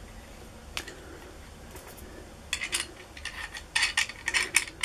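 Small metal hardware clinking and rattling as nuts and parts of a homemade coil-winding jig are handled and fitted: a single click a little under a second in, then a quick run of light clinks from about halfway on.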